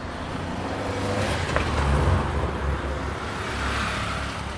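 A car passing close by in street traffic, its engine and tyre noise rising to a peak about two seconds in and then fading.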